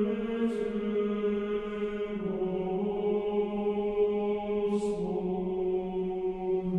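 Slow Orthodox Christian chanting: long held sung notes that step to a new pitch about two seconds in and again around five seconds, with a couple of hissed 's' sounds from the words.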